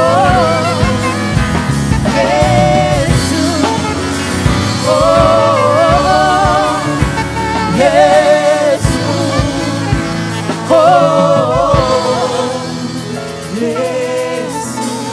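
Slow gospel worship music: a singer's held, wavering "oh" phrases over a sustained keyboard and bass accompaniment.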